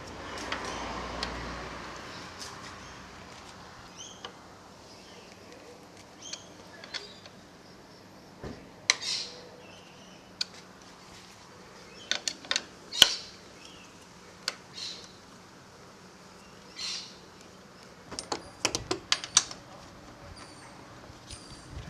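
Scattered sharp clicks and clinks with short rustles, typical of tools and small parts being handled during motorcycle fork work, with a few faint short high chirps in the background.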